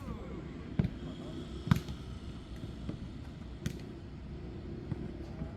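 Jokgu ball being kicked and bouncing on the court: five sharp thuds spaced about a second apart, the loudest a little under two seconds in.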